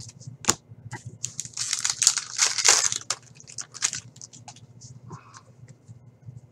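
Upper Deck Series 2 hockey cards being shuffled through by hand, glossy card stock sliding and flicking against card. The rustling is densest about two to three seconds in and thins out toward the end.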